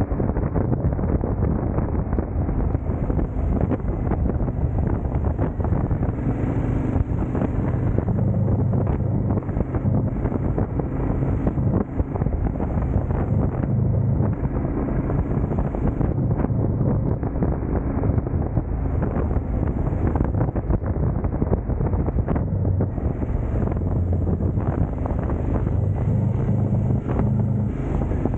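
KTM twin-cylinder motorcycle engine running under way, its revs shifting up and down, with wind rushing over the microphone.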